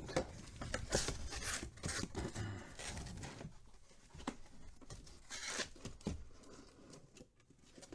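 Cardboard card boxes and packing being handled: an irregular run of rustling, scraping and tearing, busiest in the first few seconds and quieter toward the end.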